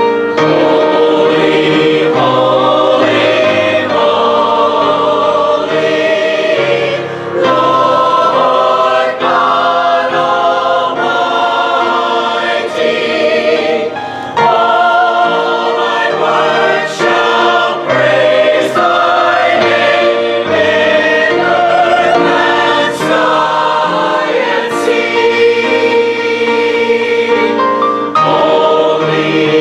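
Mixed church choir of men and women singing together.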